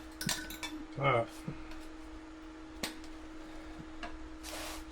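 Metal tire spoons clinking against a dirt bike's spoked steel rim while prying the rear tire bead off: a few sharp clicks at the start, one more about three seconds in, and a short scraping rasp near the end, over a steady faint hum.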